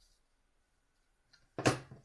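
A faint click, then one short sharp clack near the end: the thermostatic radiator valve head being handled as it is refitted to the valve.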